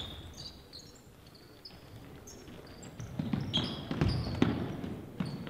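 Basketball play on a hardwood gym court: sneakers squeaking in short chirps, with a cluster of ball bounces and thuds in the second half, loudest about four seconds in.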